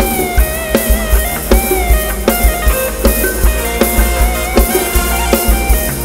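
Live Thai ramwong dance band playing an instrumental passage, loud through a PA. A fast, steady kick-drum beat runs under a gliding lead melody.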